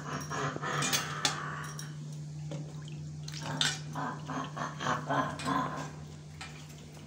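Steel plates and a knife clinking and knocking on a kitchen counter, with a few sharp clicks over a steady low hum.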